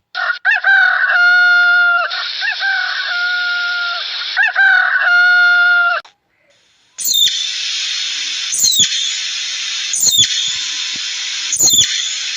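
A bird calling three times, each call rising quickly and then held at a steady pitch for about a second. After a short break, a steady hissing sound follows, broken by four sharp clicks about a second and a half apart.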